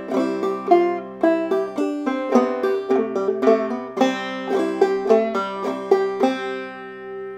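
Five-string banjo played clawhammer style: a phrase of plucked melody notes, about two to four a second, over steadily ringing drone strings. About six seconds in the picking stops and the final note, the open second string's C that ends the tune, rings out.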